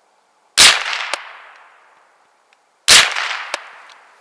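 Two shots from a Gevarm E1 open-bolt semi-automatic .22 Long Rifle rifle, just over two seconds apart, each dying away in an echo over a second or so. A short, sharp click follows each shot about half a second later.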